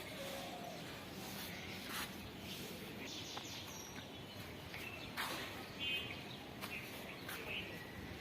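Outdoor background noise with a few faint bird chirps and occasional short sharp clicks.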